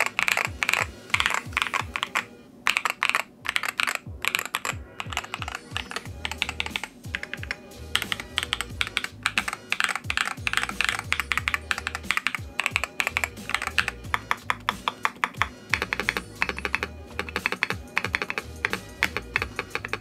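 Fast typing on a Gamakay LK67 mechanical keyboard built with lubed Akko Lavender Purple tactile switches, tape, EVA foam and PE foam mods, and XDA-profile keycaps: a dense run of keystroke clacks, with short pauses around two to five seconds in. Background music plays under it.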